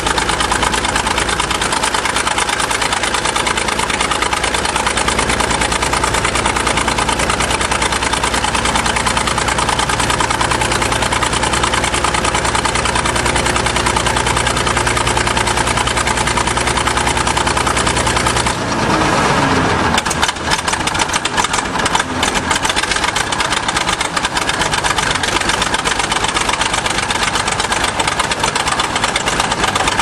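International Harvester TD-20 crawler dozer's diesel engine running steadily on a test run after a clutch replacement. About two-thirds of the way through, the engine note dips and falls briefly, then turns rougher and more uneven, with scattered knocks.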